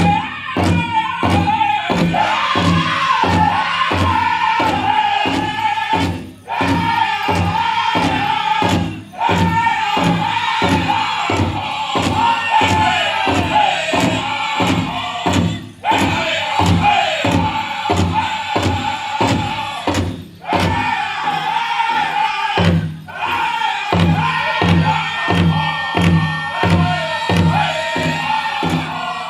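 Powwow drum group singing a chicken dance song in unison over a big drum, beaten in a steady quick rhythm, with a few brief breaks in the drumming.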